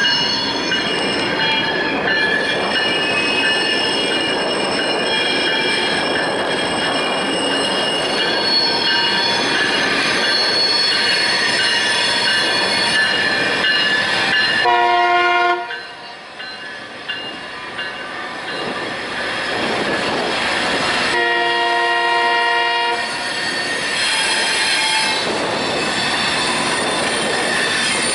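Loram rail grinder train rolling past close by, its wheels squealing with many steady high tones over the rumble of the cars. A horn sounds twice, for about a second just past halfway and for about two seconds a little later.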